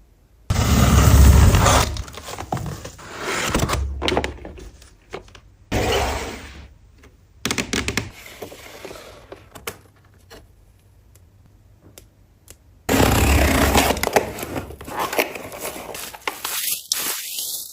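Packaging being handled and torn open by hand: irregular bursts of rustling, crinkling and scraping, loudest near the start and again from about thirteen seconds in, with a quiet pause in between.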